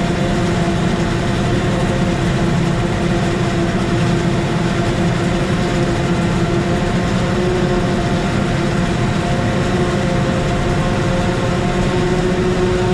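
Tractor engine running at a steady drone, heard from inside the cab, with a low rumble and a constant engine hum.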